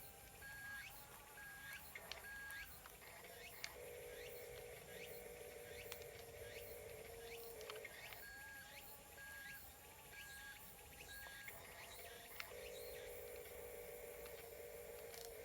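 Faint background music: a looping pattern of four short high beeps alternating every few seconds with a warbling lower figure, with light clicks.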